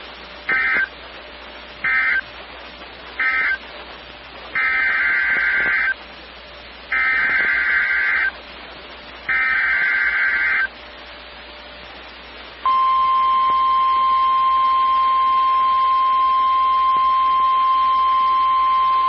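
Emergency Alert System SAME data bursts: three short, buzzy end-of-message bursts, then three longer header bursts for the next alert. About 12 seconds in, the steady single-pitch NOAA Weather Radio warning alarm tone starts and holds.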